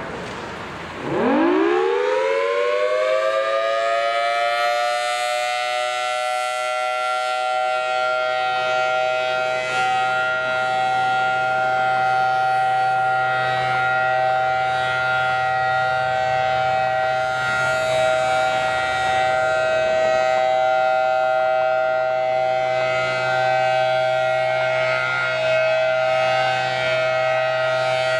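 Federal Signal Thunderbolt outdoor warning siren starting up for a test: about a second in its pitch sweeps quickly upward, then levels off within a few seconds into a loud, steady held tone.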